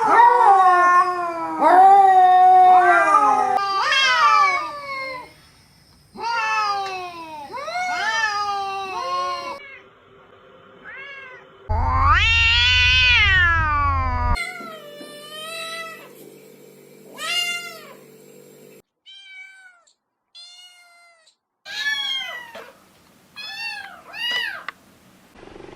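Domestic cats meowing, one call after another: several long, drawn-out meows that rise and fall in pitch, then a run of short, higher meows. The background changes abruptly between calls, as from separate recordings spliced together.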